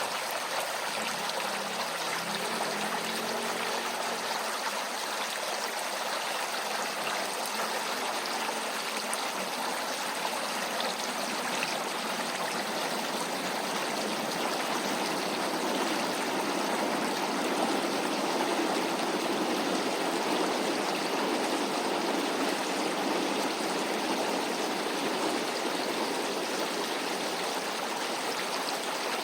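Small creek flowing steadily: a continuous rushing babble of water. A faint low hum sits under it for the first several seconds and fades out.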